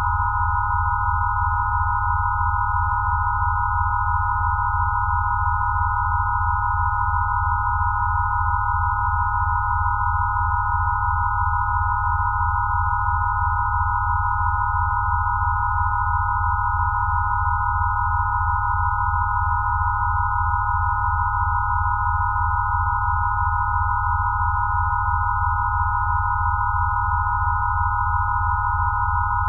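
Synthesized sine-wave tones of a Rife-style healing frequency set. Several high, pure pitches are held together without change over a low hum that pulses rapidly and evenly.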